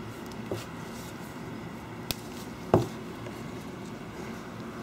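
A few scattered clicks as gloved fingertips press the edges of an iPad 4's replacement glass digitizer so that it pops into the bezel. The loudest click comes a little past halfway, over a steady low room hum.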